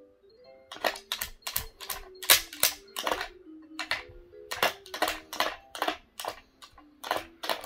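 Baby Einstein Take Along Tunes musical toy playing a tinkly electronic melody. From about a second in, a quick run of sharp clicks comes at about two to three a second as a dog's paw bats and taps the plastic toy.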